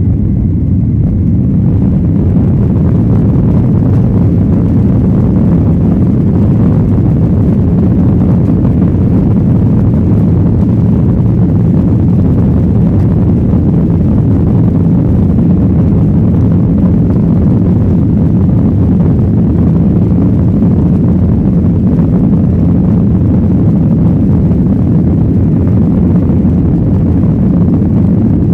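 Steady, loud roar of a Boeing 737-900ER's CFM56-7B jet engines and airflow, heard inside the passenger cabin, with a deep rumble and no change in level.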